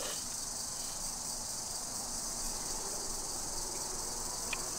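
Steady high-pitched chorus of insects buzzing in the forest.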